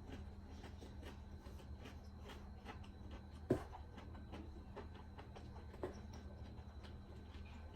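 Close-miked chewing of tough, rubbery sea-snail meat: many soft wet mouth clicks, with one sharper knock about three and a half seconds in and a lighter one near six seconds.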